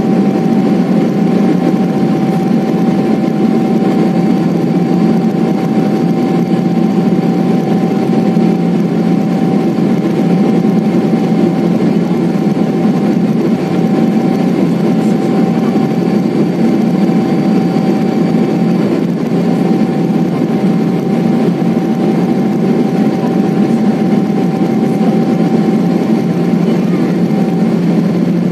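Cabin noise of a Boeing 777-300ER climbing after takeoff, heard from a window seat over the wing: the GE90-115B turbofans at climb power make a steady, loud drone with a thin steady tone held above it.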